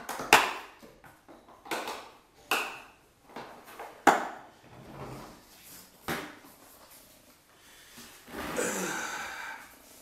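Hard plastic clunks and clicks as a Hitachi shop vacuum's head is set back on its tank and its corrugated hose is handled. About five sharp knocks come over the first six seconds, then a longer rubbing rustle near the end.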